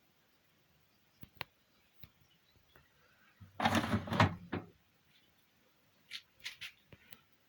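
Handling noises: a couple of sharp clicks, then a louder rattling clatter lasting about a second, followed near the end by a quick run of short knocks, like a drawer or door being worked.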